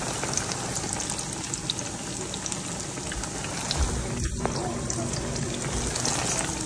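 Sliced ripe plantains frying in hot oil in a pan: a steady sizzle with small scattered crackles and pops.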